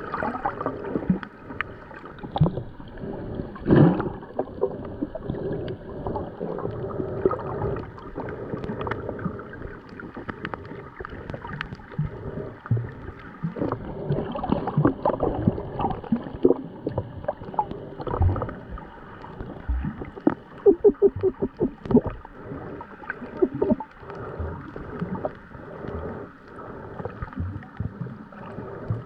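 Muffled underwater sound of shallow sea water sloshing and gurgling, with irregular clicks and knocks and a quick run of clicks about two-thirds of the way in.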